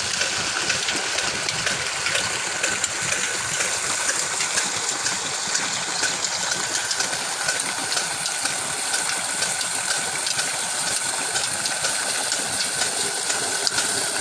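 Old desi diesel engine with a large flywheel running steadily, driving a tube-well pump, mixed with water gushing from the outlet pipe into a cement tank.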